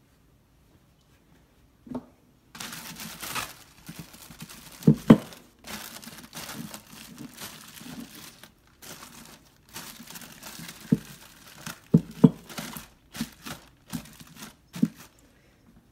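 A plastic freezer bag crinkling as it is stretched and tucked over a glass mixing bowl, starting about two seconds in, with several sharp knocks as the bowl is handled.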